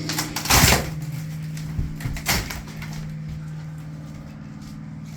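Two short clatters of material being moved or pulled loose while gutting a houseboat interior, the first about half a second in and louder, the second just after 2 seconds, over a steady low hum.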